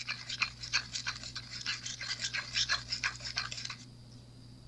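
Wooden stir stick scraping round a paper cup, mixing liquid flex rubber with purple glitter: quick scratchy strokes that stop about four seconds in.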